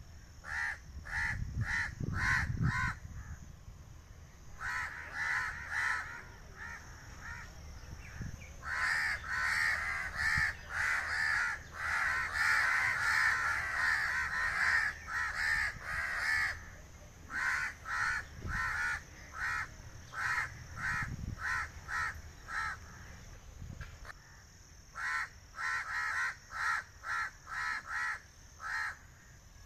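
A flock of crows cawing: runs of short, quickly repeated caws from several birds at once, overlapping most thickly in the middle, with brief lulls between runs.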